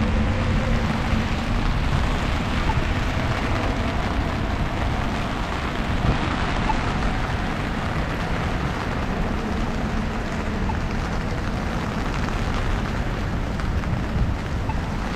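Heavy freezing rain falling, a dense steady hiss over a low rumble. A faint hum near the start fades after about a second.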